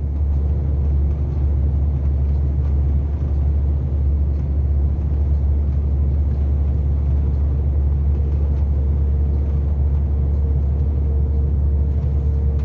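Steady low rumble of engine and road noise from a truck travelling at highway speed, heard from inside the cab.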